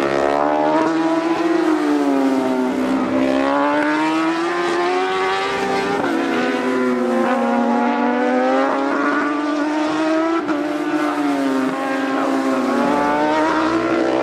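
Racing superbikes passing through a corner one after another. Their engine note falls and rises again several times as they come off the throttle and accelerate away.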